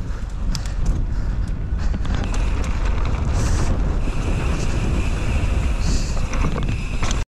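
Wind buffeting an action-camera microphone on a moving mountain bike, over a steady low rumble of tyres on the trail and scattered clicks and rattles. A faint steady high tone holds for a few seconds in the middle.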